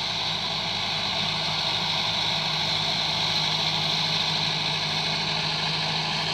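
Massey Ferguson 385 4WD tractor's four-cylinder diesel engine running steadily under load as it pulls a rotary tiller through the soil.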